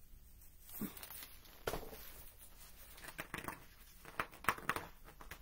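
Pages of a hardcover picture book rustling as the book is handled and a page turned: a string of short crinkles and soft taps starting about a second in, thickest near the end.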